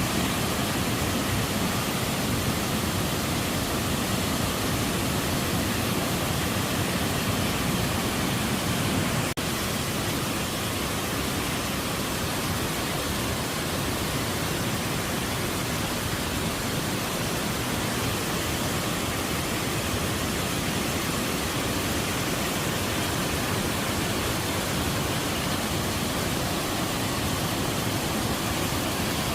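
Waterfall: the steady, unbroken rush of falling water, spread evenly from low to high pitches.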